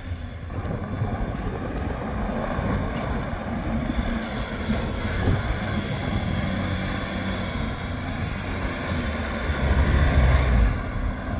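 Ford Everest SUV driving fast over a loose dirt field, engine and tyres running, louder near the end as it passes close by.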